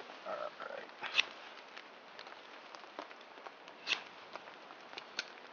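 Ferrocerium rod scraped with a striker, three short sharp scrapes: about a second in, near four seconds, and just before the end, throwing sparks onto a wax-and-cotton fire-starter disc.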